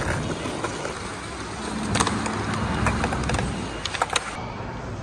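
Skateboard wheels rolling over stone paving, a steady low rumble with several sharp clicks in the second half.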